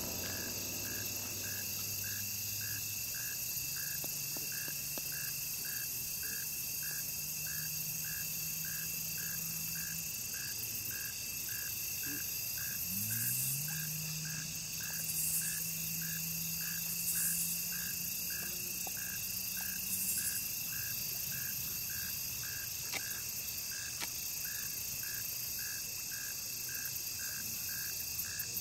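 Summer creekside insect chorus: a steady high drone of insects with a regular chirp repeating a little under twice a second, and a few brief raspy bursts of insect song midway. A faint low hum runs underneath and rises in pitch about halfway through.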